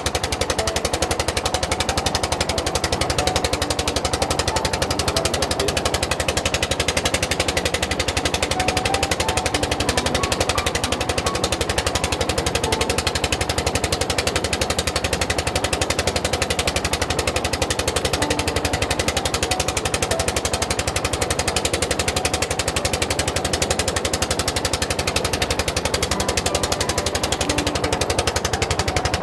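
Fishing boat's engine running steadily with a fast, even chugging.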